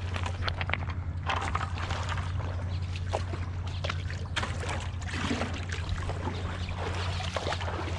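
Water splashing and lapping in the shallows in many small, irregular splashes, over a steady low hum.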